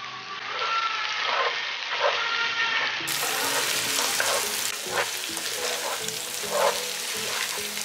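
Pepper chicken sizzling in a pan while a spatula stirs it, with squeaky scrapes and a few sharp knocks against the pan.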